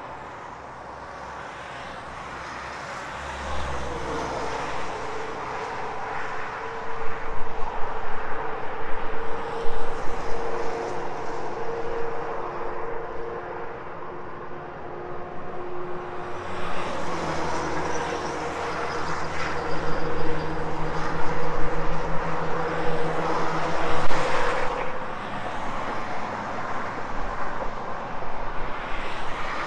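Cars and trucks passing on a multi-lane road: tyre noise with a steady engine tone underneath. It swells twice into louder passes, about a quarter of the way in and again past the middle.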